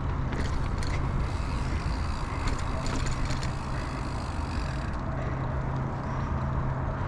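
Mountain bike rolling along a dirt trail: a steady rumble of tyres and wind, with scattered light clicks and rattles from the bike.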